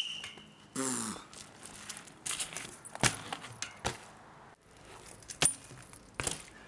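BMX bike riding on pavement: several sharp knocks of the wheels and frame coming down on the ground, the loudest near the end as the bike lands from a bunny hop, with tyre rolling noise between. A short shout falls in pitch about a second in.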